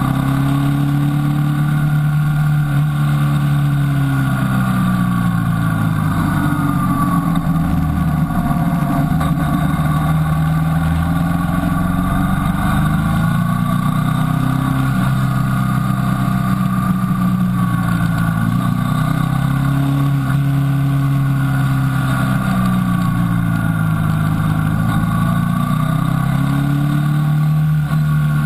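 Motorcycle engine running while riding, its revs rising and falling every few seconds as the rider works the throttle through a series of bends.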